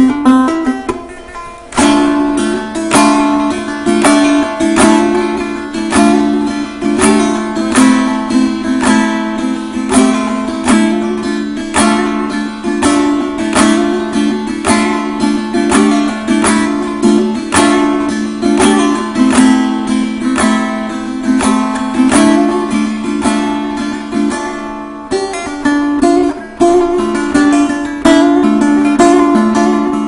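Kopuz, a Turkic plucked lute, played in free improvisation: quick runs of plucked and strummed notes over a steady low drone, with a brief pause about a second in.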